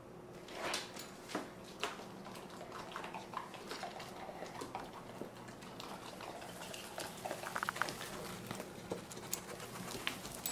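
A dog eating small dry pellets off a sheet of paper: irregular crunching and light clicks, with the metal tags on its collar clinking.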